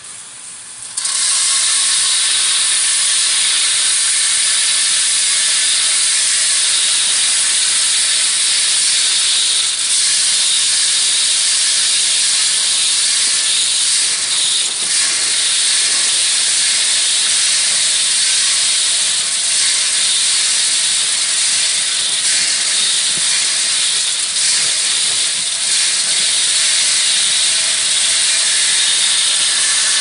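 Ruwac WS2320 heavy-duty industrial vacuum running, a loud, steady rushing hiss of suction as its hose sucks up small rock chips from a box. It gets sharply louder about a second in and then holds level.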